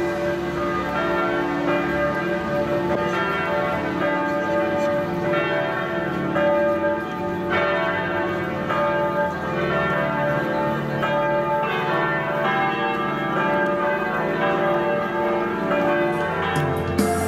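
Church bells pealing, one strike after another, their tones ringing on and overlapping.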